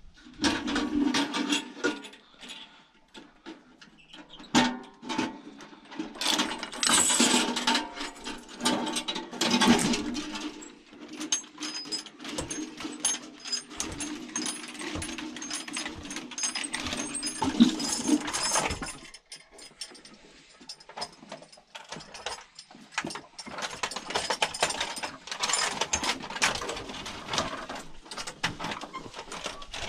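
Wooden well windlass being turned, its iron chain rattling and clinking over the log drum as the bucket goes down the shaft. A steady creak runs under the clinking and stops suddenly about two-thirds of the way through; clinking picks up again near the end.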